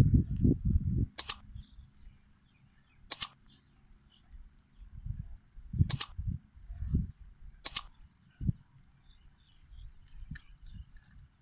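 Four sharp mouse-click sound effects, a second or two apart, from an animated like, subscribe and bell-button overlay. Under them are low gusty rumbles of wind and handling on the microphone.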